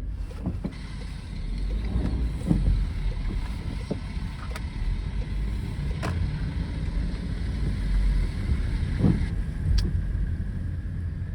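Car driving, heard from inside the cabin: a steady low rumble of road and engine noise, with a few brief clicks or knocks.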